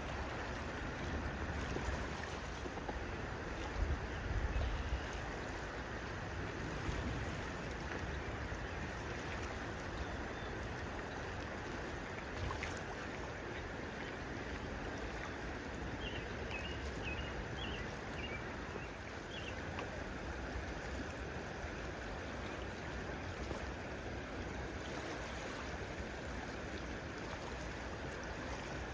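Steady rush of flowing water, as from a stream or weir. A few faint high chirps come through about halfway and again near the end.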